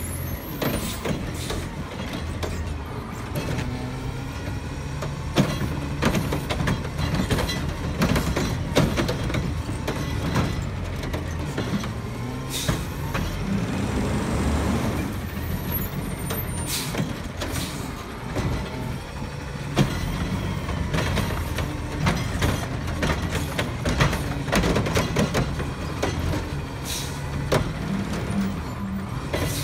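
Front-loading garbage truck with a cart-tipping can on its forks: the diesel engine runs and rises and falls in pitch while it works the curb. Frequent sharp clanks and bangs of metal and carts come through.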